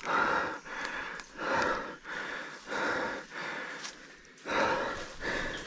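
A man breathing hard and fast, out of breath, in and out about once a second.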